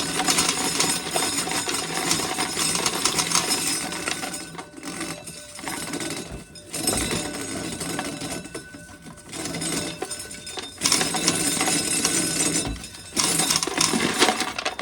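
Dried corn being shelled off the cob: a dense rattle of kernels breaking loose, in spells of a few seconds with short breaks between.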